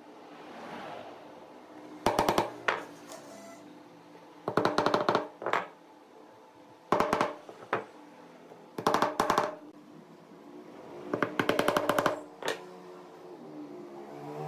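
Background music: soft sustained tones with a short rattling percussion figure of quick, even clicks that comes back about every two and a half seconds.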